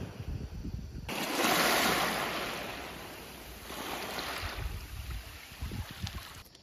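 Small waves washing in over a pebble beach, a hissing wash that swells about a second and a half in and again around four seconds. For the first second, before the waves, wind buffets the microphone.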